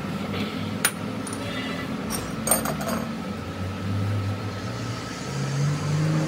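Metal tools and parts clinking: a sharp click about a second in, then a cluster of clinks around two and a half seconds, over a steady low hum that rises in pitch near the end.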